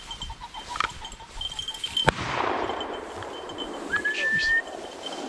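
A single shotgun shot about two seconds in, fired at a flushed pheasant, with a brief echo trailing after it. A short high tone follows about two seconds later.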